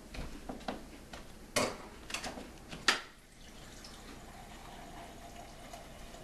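A run of short, sharp knocks and clicks, the loudest about three seconds in, followed by a faint steady hum.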